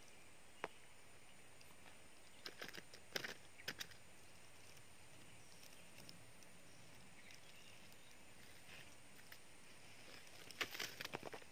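Near silence with a few faint short clicks and rustles: one under a second in, a small cluster around three seconds in, and another cluster near the end.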